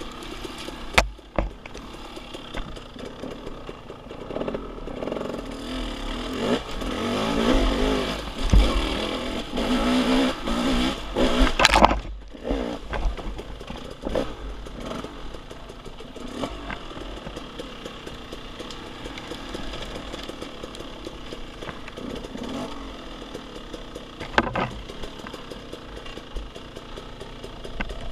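Off-road motorcycle engine running on a trail ride, the throttle rising and falling, with a louder stretch of revving in the middle. A few sharp knocks or clunks come through, one about a second in, one near the middle and one late on.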